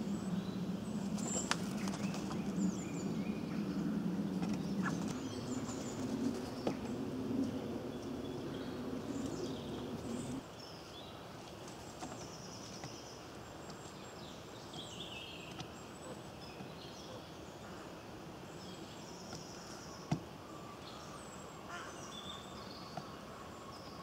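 Woodland birdsong: small birds chirping and singing in short phrases, over a low hum that cuts off suddenly about ten seconds in. A few sharp taps stand out.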